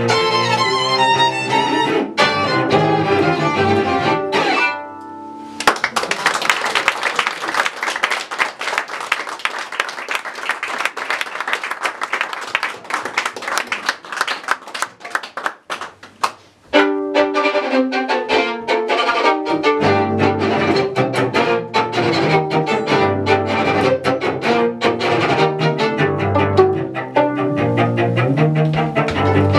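A violin and a cello playing together. About five seconds in the music stops and a small audience applauds for roughly eleven seconds, the clapping thinning out before the violin and cello start playing again.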